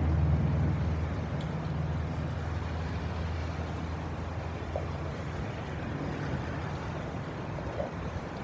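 Heavy rain falling on wet pavement, a steady hiss, with a low hum under it that fades over the first few seconds.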